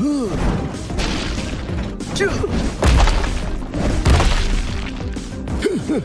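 Cartoon soundtrack: background music with heavy thuds about three and four seconds in, and short gliding, voice-like sound effects.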